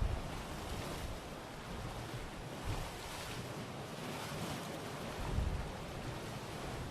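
Sea waves washing in on a rocky shore in steady surf, with strong wind buffeting the microphone in low gusts at the start and again about five seconds in.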